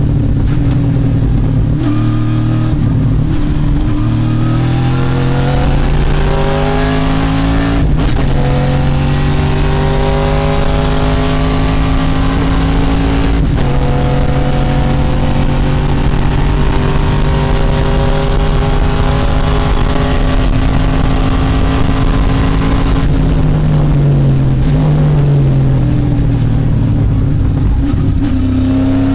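TA2 race car's V8 engine at full throttle, heard from inside the cockpit: the pitch climbs and drops sharply at upshifts about 8 and 13 seconds in, holds high, then falls as the car brakes and downshifts toward the end before climbing again.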